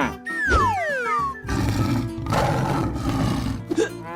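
A tiger roar sound effect over background music: a pitched cry falling steeply in pitch near the start, then a long rough roar.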